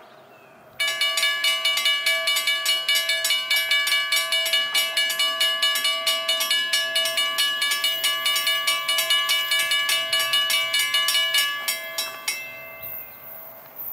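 Railroad grade-crossing warning bell starting suddenly and ringing rapidly, about four strikes a second. It stops about twelve seconds in, after a few last strikes. The bell signals an approaching train.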